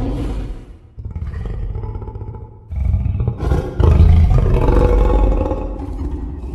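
Dinosaur roar sound effects in succession. One roar trails off, then comes a quieter call, then a louder, longer roar from about three seconds in.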